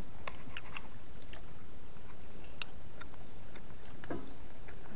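A person eating: scattered faint clicks and crunches of chewing, over a steady high hum.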